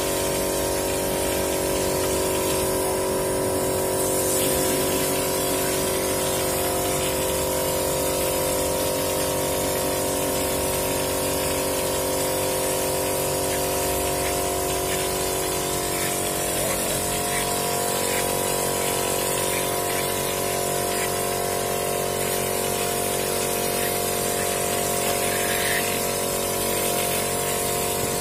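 Hopper spray gun blowing travertine texture plaster onto a wall with compressed air: a steady hiss over the hum of the air compressor feeding it, which holds several steady tones.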